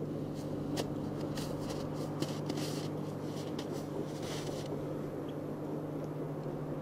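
Distant diesel freight locomotive, a pair of JNR DD51s, working up the line: a steady low engine hum, with a few faint clicks in the first few seconds.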